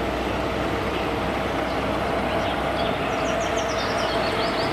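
Heavy four-axle dump truck's diesel engine running steadily with a low hum as the truck drives slowly on dirt. Faint short high chirps come over it from about a second and a half in.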